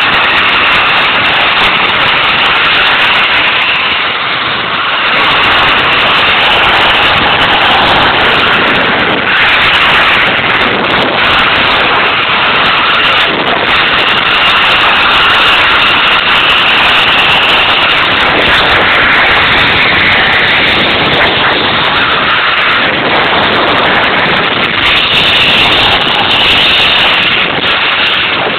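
Zip line trolley running fast along the steel cable, with loud rushing wind on the microphone. The noise is steady throughout, with a higher whine that comes and goes.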